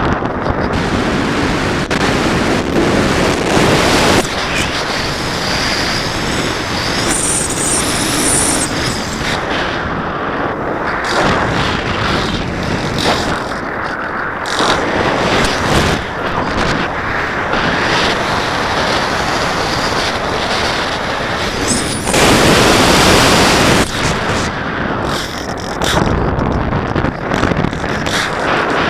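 Rushing wind noise buffeting the microphone of the camera riding on a Radian RC glider in flight, surging in gusts and loudest about 22 seconds in. A faint brief high whine comes in about seven seconds in.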